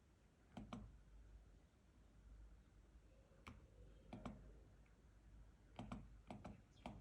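Faint computer mouse clicks, several of them in quick pairs like double-clicks, over a low steady hum.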